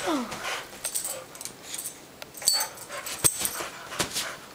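Boxer puppy moving about on a sofa: a brief falling whimper at the start, then scattered thumps and rustling as it moves over the cushions, with a sharp knock about three seconds in.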